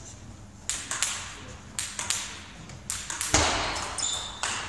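Table tennis ball clicking off bats and the table during a serve and rally, the hits coming in quick pairs. A louder thump about three and a half seconds in.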